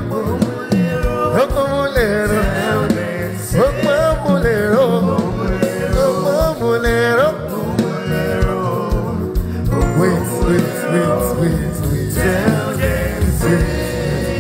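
Gospel music: a singer's melody over a band with a steady beat.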